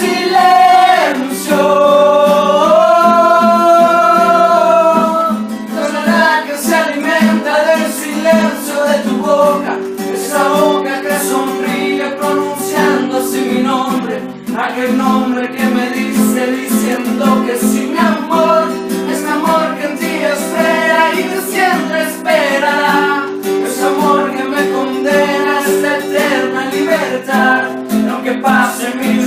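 Music from a Spanish-language ballad with guitar accompaniment and a melody line of long held notes; no lyrics are made out.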